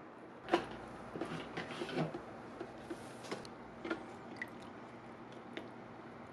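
Wooden skewers and chopsticks knocking and clicking against a stainless steel hot-pot pan of fish cakes in broth. A sharp knock comes about half a second in, then a cluster of clicks and soft wet knocks around one to two seconds, then a few scattered light ticks.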